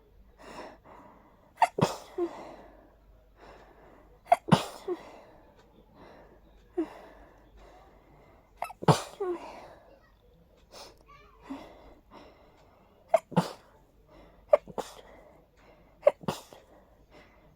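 A person sneezing repeatedly in a hayfever sneezing fit: a string of sharp sneezes, many coming in quick pairs, with quieter breaths between them.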